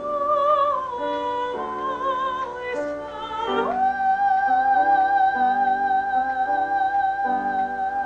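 A woman singing into a microphone over a quiet accompaniment. She sings a short falling phrase, then holds one long note with vibrato from about four seconds in.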